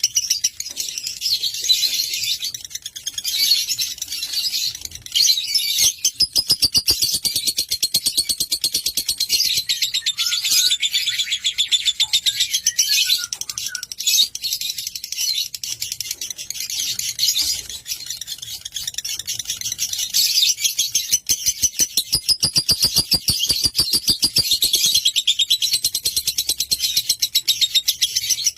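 Lovebird singing in a long, unbroken stream of rapid, high chattering notes, with a few lower chirps in the middle.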